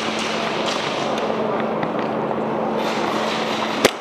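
A steady, loud rushing noise with a faint low hum. Near the end it breaks off with a single sharp crack of an airsoft pistol shot.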